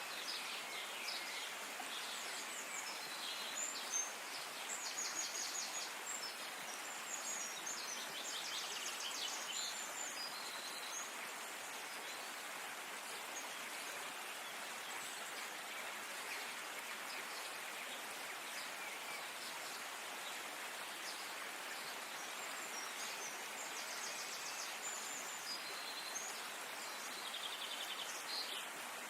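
Birds calling in quick trills and chirps over a steady outdoor hiss like running water or rain. The calls are busiest in the first ten seconds and again near the end.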